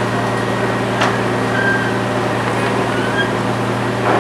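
A fishing boat's engine running steadily under a wash of dockside noise, with a sharp knock about a second in and another near the end.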